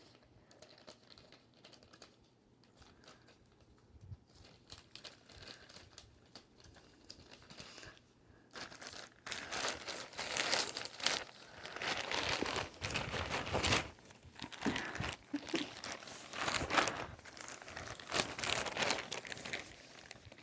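Plastic packaging crinkling and tearing as a mail package is opened by hand, in irregular bursts; only faint handling clicks for the first several seconds.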